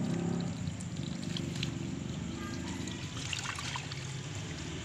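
Water pouring from a tap into a plastic bowl, splashing steadily as bait is rinsed in it.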